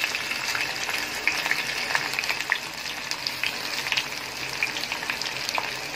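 Sliced onions frying in hot mustard oil in a pressure cooker: a steady sizzling hiss with many small crackles and pops.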